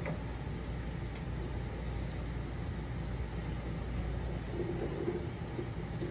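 Steady low background rumble and hum, like a running air conditioner or ventilation fan, with a few faint ticks.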